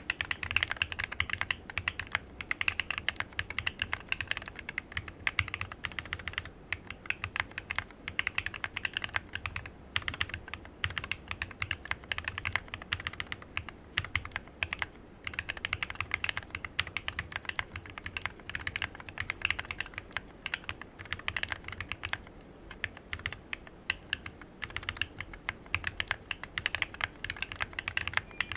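Typing on a Planck Rev6 ortholinear mechanical keyboard with lubed, filmed Cobalt POM linear switches, a steel plate in an aluminium case, and PBT OEM-profile keycaps: a steady stream of keystrokes with a few short pauses.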